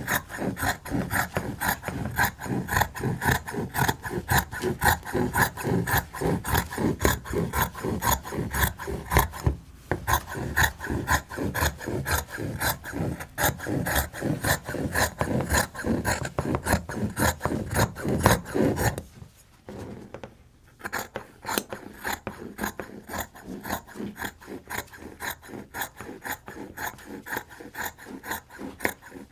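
Scissors cutting through quilting cotton in quick, even snips, about four or five a second. The cutting pauses for a moment about 19 seconds in, then goes on more softly.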